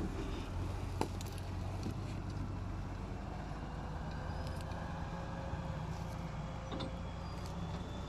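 BMC Pro logging truck's diesel engine running steadily at low revs under a load of logs, with one short knock about a second in.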